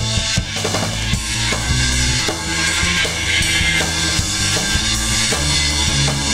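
Rock band playing live: drum kit with bass drum and snare, electric bass, electric guitars and synthesizer keyboards.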